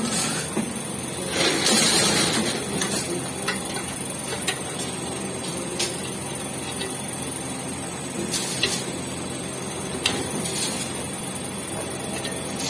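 MIG welder arc crackling and sizzling steadily with many small pops, with a louder surge about a second and a half in and shorter surges later.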